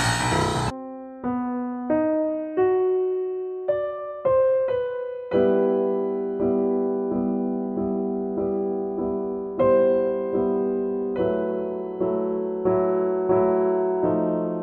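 Background music: a drum-backed passage cuts off just under a second in. A piano then plays single notes, one after another, and from about five seconds in a run of repeated chords.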